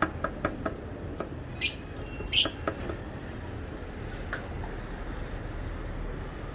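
Pet parrot giving two short, loud, harsh squawks about a second apart, after a run of light clicks and taps from the cage.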